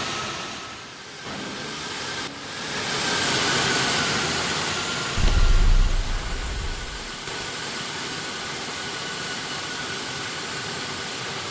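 Fighter-jet engine sound effects: a noisy jet roar with a thin steady whine, swelling and fading as the jets pass, and a louder low rumble about five seconds in.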